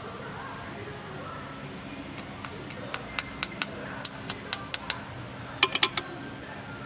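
About a dozen quick, light metallic clicks and clinks over three to four seconds as an assembled tractor diesel fuel injection pump is handled and turned over in the hand, closest together near the end, over a faint steady hum.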